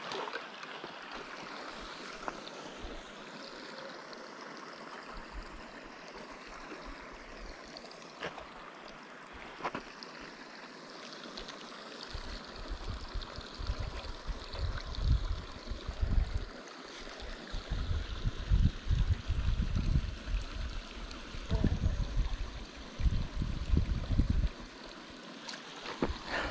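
Steady rush of flowing water, with low rumbling bumps on the microphone coming and going through the second half.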